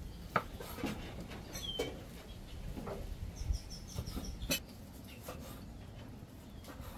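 Scattered knocks and clicks of a knife cutting up beef shank and ribs, with the loudest knocks about half a second and about four and a half seconds in. Short bird chirps come through: one near two seconds in and a quick run of four high ones a little past the middle.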